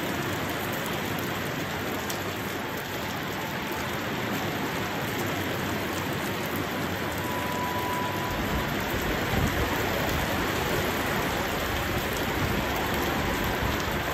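Steady heavy rain pouring down, an even hiss that fills out with a deeper low rumble from about eight seconds in.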